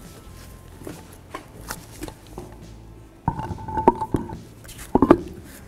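Faint clicks of a plastic brake fluid reservoir cap being screwed on. Then, a little over three seconds in, an alloy wheel and tire knock and clank against the hub as they are fitted onto the wheel studs: several sharp knocks with a short metallic ring.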